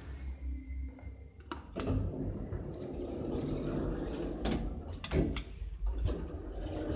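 Passenger elevator: doors sliding shut with several clicks and knocks, over a low steady hum. A faint steady tone sounds during the first second.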